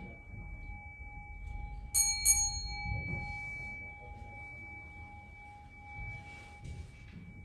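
Buddhist temple bowl bells: a steady two-note ring hangs on, and a bell is struck twice in quick succession about two seconds in, its bright ring fading over the next second or so. Soft rustling near the end.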